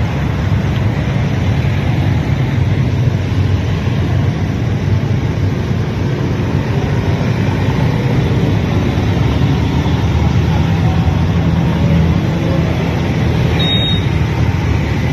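Steady low rumble of street traffic: the engines of motorbikes and slow-moving float vehicles running.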